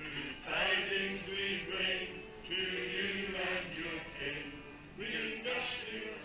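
A group of amateur singers, mostly men, singing a Christmas carol together in phrases with short breaks between them.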